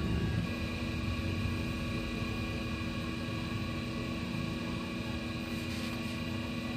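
Electric motor of a wheel-straightening machine running steadily, spinning a repaired alloy wheel on its shaft: an even hum with several fixed tones.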